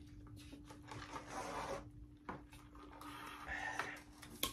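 Quiet room with a faint steady hum, a soft sip through a straw, and a couple of light knocks as a fast-food drink cup is handled and set down on a tray.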